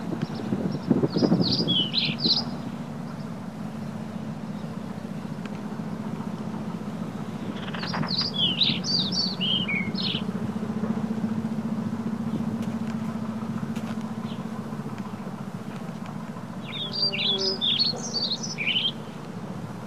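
A songbird singing three short phrases of quick falling chirps, about eight seconds apart, over a steady low hum.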